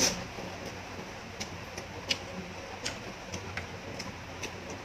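A person chewing a mouthful of noodles close to the microphone, with irregular wet mouth clicks and smacks about every third to half second. The loudest smack comes right at the start.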